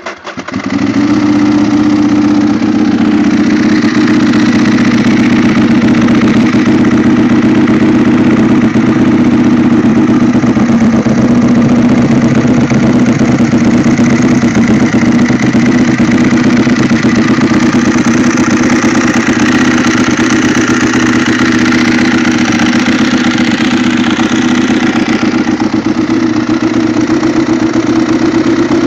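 A 2009 Ducati 1198's L-twin engine, breathing through stock silencers hollowed out and fitted with A&R Motorsports race baffles, catches on the starter and then idles steadily.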